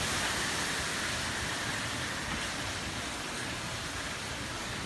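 Hurricane wind and rain making a steady rushing noise, with no separate gusts or impacts standing out.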